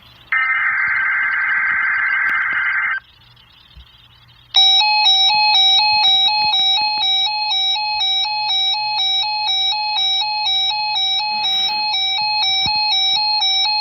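Emergency Alert System broadcast signal: a burst of buzzing digital header data, a short pause, then a loud electronic alert tone that repeats a stepping pitch pattern.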